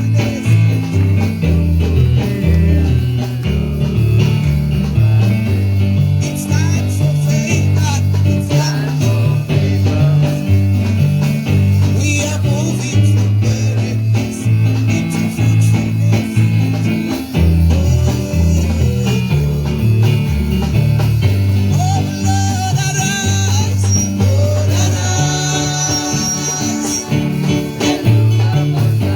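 Live church worship band music, carried by a moving bass line and guitar.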